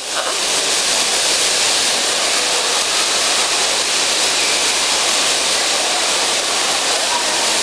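Loud, steady hissing din of a bumper car rink in use, with no distinct bumps standing out.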